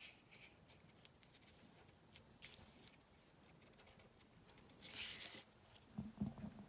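Faint rustling and light taps of cardstock and paper die cuts being pressed and slid on a craft mat, with a brief louder paper rustle about five seconds in.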